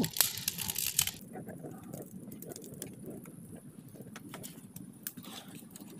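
Open fire of dry brushwood crackling, densest and loudest for about the first second, then settling into a softer low rushing burn with scattered pops.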